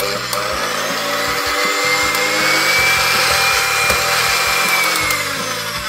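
Electric hand mixer running at speed, its twin wire beaters whisking eggs and vanilla essence in a glass bowl. A steady motor whine that winds down near the end.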